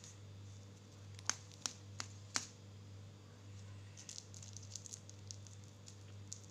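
Faint steady low hum with four sharp clicks in quick succession, about a third of a second apart, followed a couple of seconds later by a run of light ticks.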